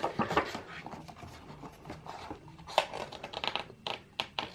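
Glossy album photobook being handled and its pages turned: an irregular run of crisp paper rustles and sharp clicks, with one louder snap a little before three seconds in.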